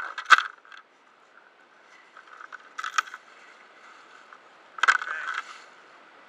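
Knocks and scrapes of a diver's gear and wetsuit against the boat close to the microphone: three sharp knocks, about half a second, three seconds and five seconds in, each with a short scrape.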